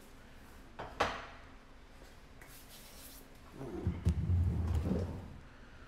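Kitchen handling noises: a sharp knock about a second in, then a louder stretch of rubbing and bumping close to the microphone, deep and muffled, around four seconds in.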